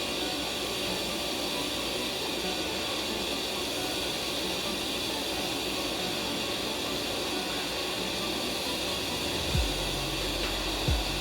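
Steady hissing noise, with two low thumps near the end.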